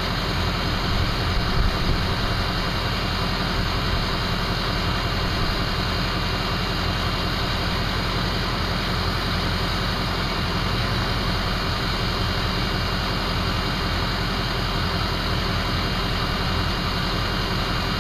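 Ford 6.0L Powerstroke V8 turbodiesel idling steadily, with a steady high whistle from its turbocharger over the engine noise.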